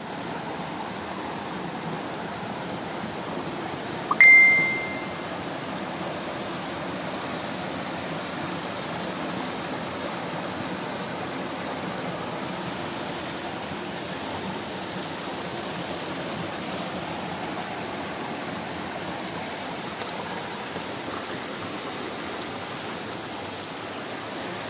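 Small waterfall and rocky stream, water rushing steadily over the rocks. About four seconds in, a click and then a short, loud, high beep cut across it.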